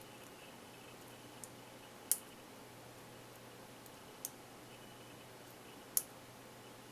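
Lock pick and tension wrench working the pin stack of a padlock: a handful of sharp, light metallic clicks at irregular intervals, the loudest about two and six seconds in.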